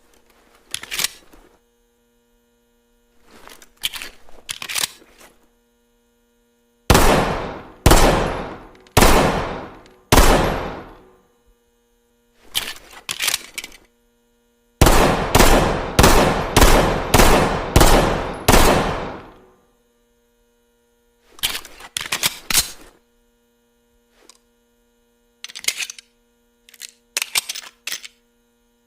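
Colt M45A1 .45 ACP pistol firing: four shots about a second apart, then a quicker string of about seven, each with a long echoing tail. Short clusters of mechanical clicks come before, between and after the shots.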